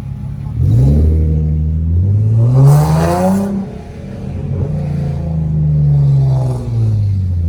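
Infiniti G37's 3.7-litre V6 revving hard under acceleration. The pitch climbs for about three seconds, drops briefly at a shift, then rises again and eases off near the end.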